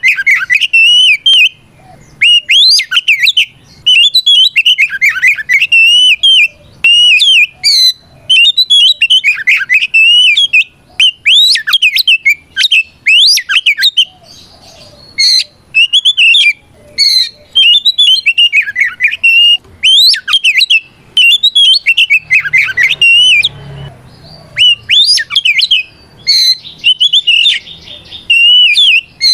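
Oriental magpie-robin (kacer) singing loudly in a full, clear challenge song that calls out a rival: runs of quick whistled phrases a second or two long, mixed with a few harsh notes, with short pauses between runs.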